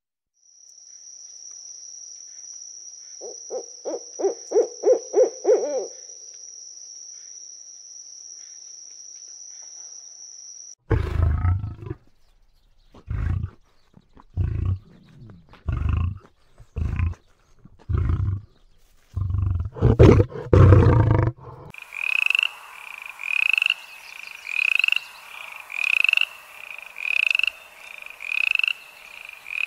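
A run of different animal calls. First comes a steady high-pitched drone for about ten seconds, with a quick series of about eight pulses partway through. Then about nine deep, loud calls roughly a second apart, and from about two-thirds in a rhythmic call repeating a little faster than once a second.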